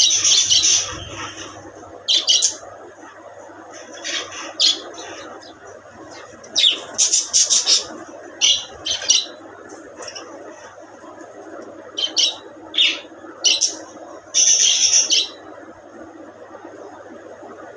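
Budgies chirping and squawking in short, shrill bursts that come in clusters every second or two, over a steady low background hum.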